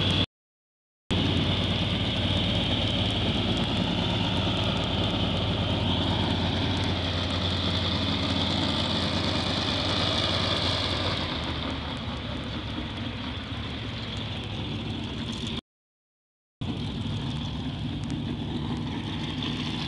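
An engine running steadily in a low hum with steady outdoor background noise, a little quieter in the second half. The sound cuts out completely twice for about a second.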